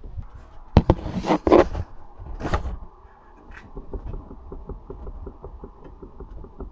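Suspension knocking from a 2022 Tesla Model Y: several sharp knocks in the first three seconds, the loudest about a second in, then a run of faint rapid ticks. The owner suspects a worn rear shock absorber top mount, and the knocking is getting louder.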